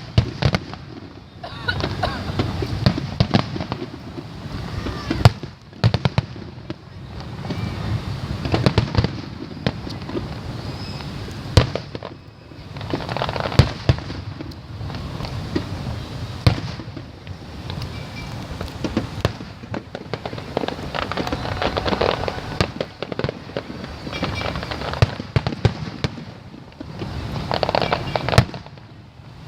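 Aerial fireworks display going off in a dense, continuous run of sharp bangs and pops. A few louder booms stand out, one about five seconds in and another near twelve seconds.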